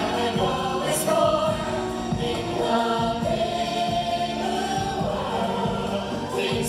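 A stage musical's song, with a choir of voices singing over the music.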